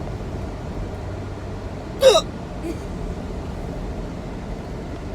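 A person hiccups once, about two seconds in: a short, sharp squeak whose pitch drops steeply. It sounds over a steady low background hum.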